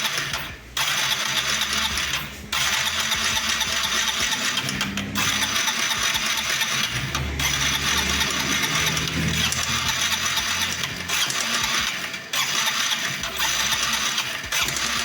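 Honda CG Titan 160 engine being cranked on the starter in repeated bursts with short pauses, not firing. A metallic tec-tec ticking comes from the middle of the engine, the strange noise that signals an internal fault.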